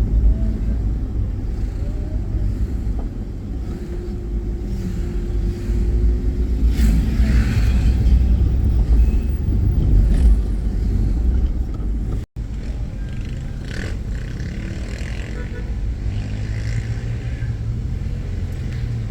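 Car being driven, with a steady low rumble of engine and road noise. A brief dropout cuts the sound a little past halfway.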